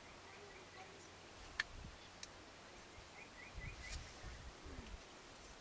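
Quiet open-air ambience with faint runs of short, high, repeated chirps. A single sharp click comes about a second and a half in, and there are a few faint low rumbles.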